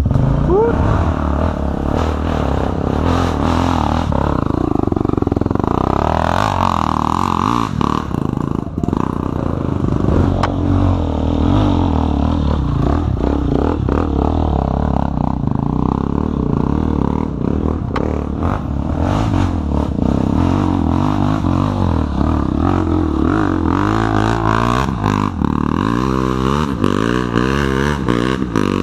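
Dirt bike engines running and revving up and down as trail bikes climb a rough dirt track, one passing close by about halfway through, with the revving rising and falling most clearly near the end. Occasional sharp clicks and clatter mix in.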